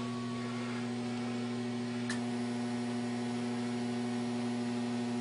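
Steady electrical hum from a homebrew 813 tube amplifier's high-voltage supply with 872A mercury vapor rectifiers, over a steady hiss, while the amplifier runs under load at about 500 watts out and 3,000 volts on the plates. A faint click about two seconds in.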